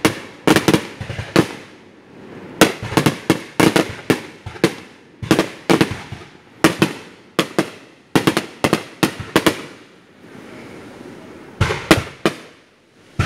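Fireworks bursting overhead: a rapid series of sharp bangs in quick clusters, with a short lull about ten seconds in before more bangs near the end.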